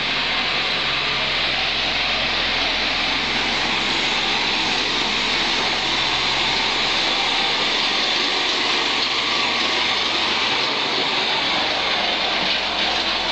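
Heavy road-construction machinery running steadily, a continuous engine noise with a strong hiss; its low hum drops away about halfway through.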